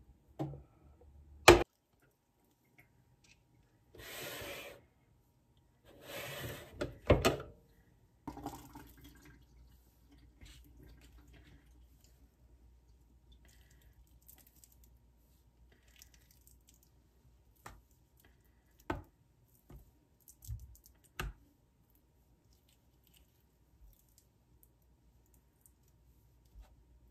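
Kitchen handling sounds: a sharp clack, two short runs of water from a tap, and a few scattered knocks and clicks.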